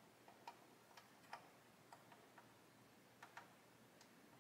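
Faint, irregular small clicks of metal tweezers and a tiny plastic kit part tapping against a plastic model hull, as the part is worked at a hole it will not seat in.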